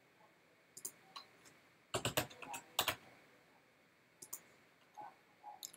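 Computer keyboard keystrokes, typing a short word: a quick run of key clicks about two seconds in, with a few scattered single clicks before and after.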